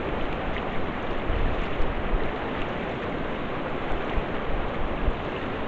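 Snake River water rushing and washing steadily, with some uneven low rumble.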